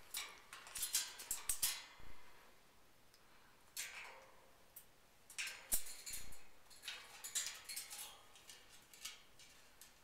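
Scattered rustles, scrapes and sharp clicks in irregular bursts, from a female Eclectus parrot moving about her wire cage.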